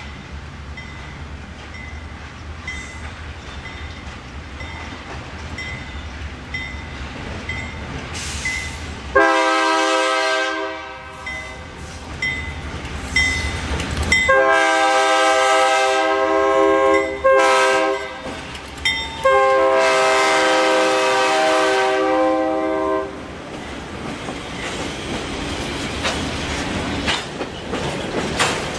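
Two GE B23-7 diesel locomotives approaching with the engines rumbling, while a bell dings steadily. The horn then sounds the grade-crossing signal: two long blasts, a short one and a final long one. After that the freight cars roll past with wheels clicking over the rail joints.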